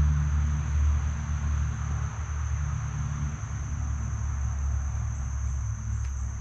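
Steady creekside ambience: a constant high-pitched insect drone over a loud, steady low rumble.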